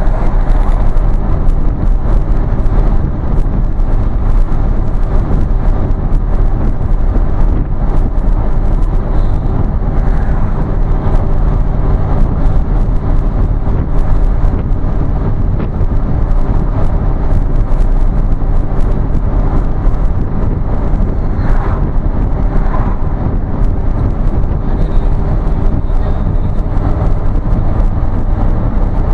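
Steady engine and tyre drone heard from inside a moving vehicle's cab, low and even.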